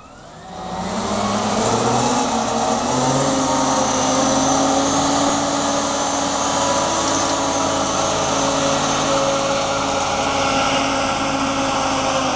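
Engine of a propane-fuelled Hoist F400 heavy-capacity forklift running as the truck drives and turns. The sound swells over the first second, then holds steady with slight shifts in pitch.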